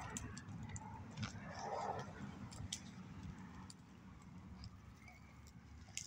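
Faint low rumble with scattered light clicks and soft rustles: handling noise from a hand-held phone.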